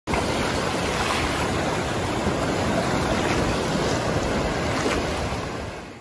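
Sea surf washing and breaking over low black volcanic rock flats, a steady rushing of waves that fades out near the end.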